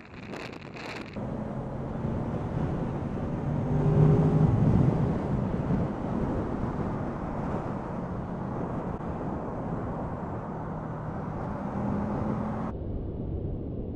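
Honda VFR800 V4 motorcycle engine running at freeway speed under steady wind and road noise on the microphone, the engine note swelling louder about four seconds in. The sound changes abruptly about a second in and again near the end.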